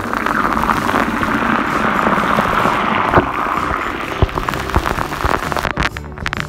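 Bath fizz bombs fizzing in water: a dense, steady crackling hiss of bursting bubbles, with several sharp knocks in the second half.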